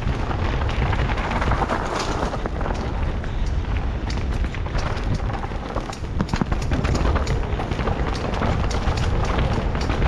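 Mountain bike riding fast down a dirt forest trail, heard from a rider-mounted camera: heavy wind rumble on the microphone over tyre noise on dirt, with frequent rattling clicks from the bike over bumps.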